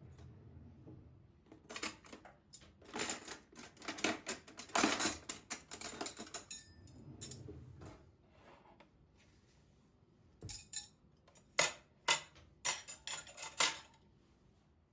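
Dishes and cutlery clinking and clattering: a busy run of light knocks and rattles, then a few separate sharper clinks later on.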